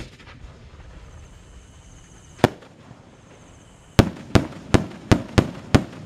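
4-inch one-break aerial shell of reports: a sharp bang at the start as it leaves the mortar, a single bang about two and a half seconds later as the shell breaks, then from about four seconds in a string of some seven loud reports going off about three a second.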